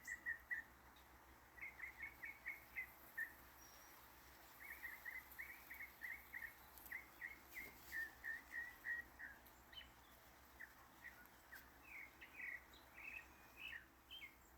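Faint bird chirping: runs of short, quick chirps, several a second, breaking off now and then and starting again.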